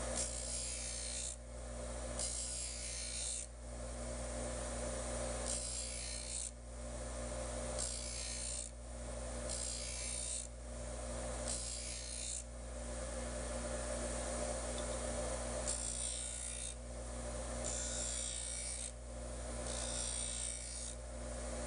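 Bench grinder motor running with a steady hum while a steel block plane blade is drawn across the grinding wheel in single passes: about nine separate bursts of grinding hiss, each roughly a second long, with short pauses between. Each burst is one pass grinding the blade's bevel, kept short so the corners do not overheat.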